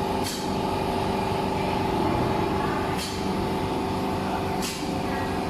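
Steady machine hum from the laser welding system's equipment running idle, made of several steady tones at an even level. Three short hisses, near the start, about three seconds in and near the end.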